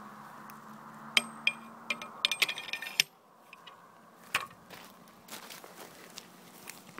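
Steel pipes and fittings of a homemade 12-gauge pipe shotgun clinking and knocking as it is handled. A few sharp metallic clinks come about a second in, then a quick run of ringing clinks that cuts off suddenly, and one more knock about four and a half seconds in.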